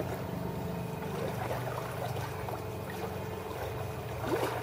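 Electric kayak motor running at full speed with a steady hum, drawing about 8.5 amps.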